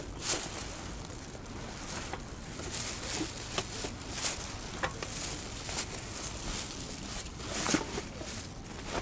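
Plastic bags and gear rustling and crinkling as camping cookware and rubbish are packed into a bag, with irregular rustles and a few sharper knocks.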